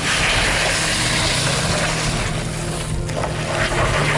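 An SUV's engine working under heavy load as it pulls through deep mud: a steady low drone with a loud rushing noise over it, starting suddenly.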